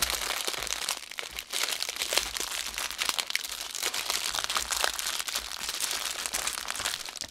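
Clear plastic bags full of small packets of diamond-painting drills crinkling and crackling as hands rummage through them, a continuous run of small crackles.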